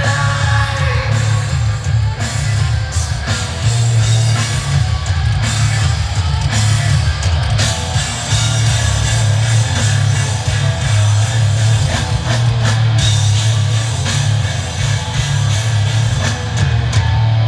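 Rock band playing live: electric guitar, a heavy bass line and drum kit, with some singing.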